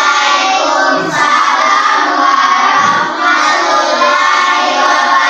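A class of primary-school children answering the Islamic greeting in unison, chanting 'Waalaikumsalam' as a long, drawn-out chorus of many voices.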